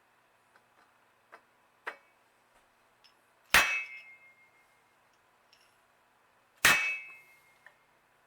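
Hammer blows on a bent BMX crank spider to straighten it: two hard metal clangs a few seconds apart, each ringing briefly, with a few light taps and clicks around them.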